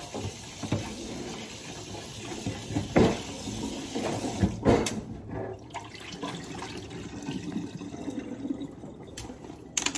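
Water running steadily from a kitchen faucet into a sink, with a couple of short knocks about three and four and a half seconds in.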